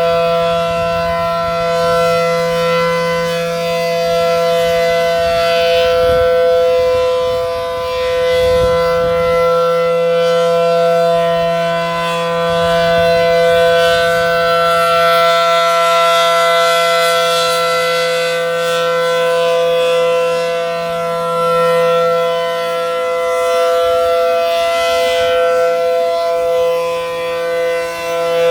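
ACA Allertor 125 civil defense siren sounding a steady wail at a constant pitch, its loudness swelling and fading slightly every few seconds.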